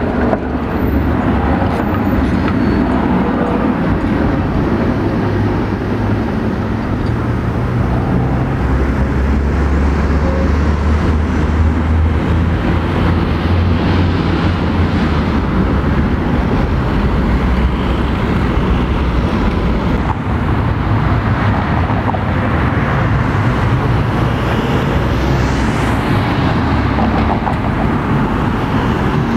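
Street traffic: trams and cars passing through a junction, a continuous mix of motor and wheel noise with a low engine drone that swells through the middle.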